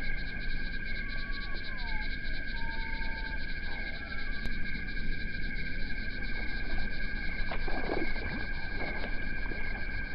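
American bullfrog calling with deep, low notes, clustered about three-quarters of the way through, over a steady high-pitched pulsing drone. A few short whistles sound in the first few seconds.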